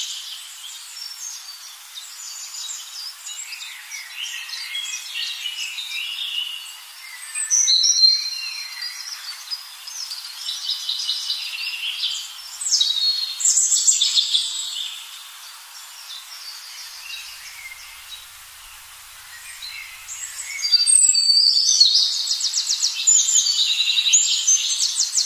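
Birds singing, with many overlapping high chirps and fast trills. The calls swell about eight seconds in and again over the last few seconds.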